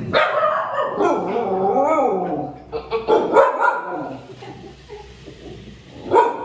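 Dogs barking and yipping: a drawn-out, wavering call for the first two seconds or so, then short sharp barks around the middle and one more near the end.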